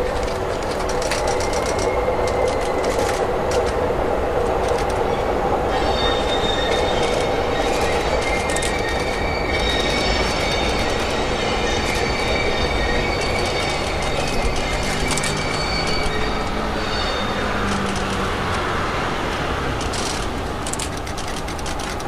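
Passenger train of E26-series Cassiopeia sleeper coaches rolling slowly past, pushed from the rear by the EF81 electric locomotive. It makes a steady rumble with clicking over the rail joints, and the wheels squeal in high thin tones through the middle of the pass.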